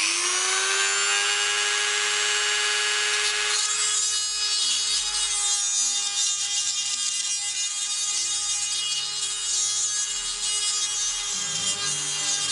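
Handheld rotary tool with a long thin drill bit running at high speed, drilling through a resin moulding: its whine rises to full speed right at the start and then holds steady. From about three and a half seconds in, a rougher cutting noise joins as the bit bites into the resin.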